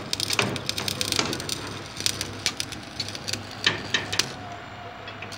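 Stick (shielded metal arc) welding on steel rebar: the arc crackles and pops irregularly, over a steady low hum.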